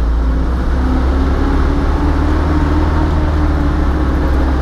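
Truck engine running steadily under way, heard from inside the cab as a deep, even drone.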